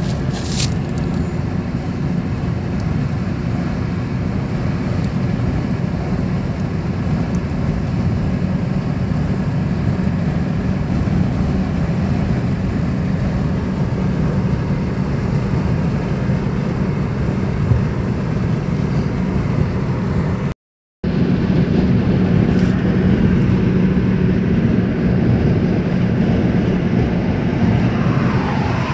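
Steady road and engine noise heard from inside a car cruising on a highway: a low, even drone with no change in speed. It cuts out briefly for about half a second roughly two-thirds of the way through.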